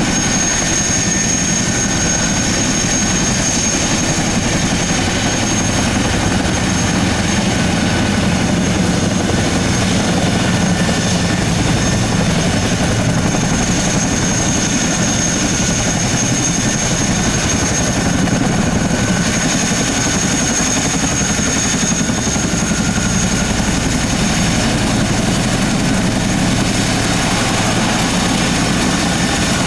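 Boeing CH-47F Chinook taxiing with both tandem rotors turning: a steady, rapid rotor chop under the high-pitched whine of its two Lycoming T55 turboshaft engines.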